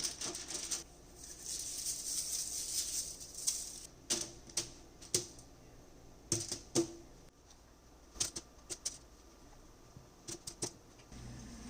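Kitchen items being handled: scattered light clicks and knocks, with a soft hiss in the first few seconds and a low steady hum starting near the end.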